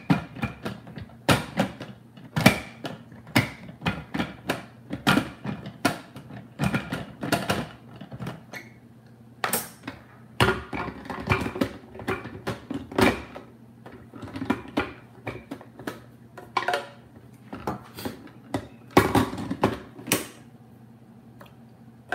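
Plastic clicks and knocks, irregular and spread throughout, from a Ninja blender's pitcher and lid being handled and set on its motor base; the blender is not running.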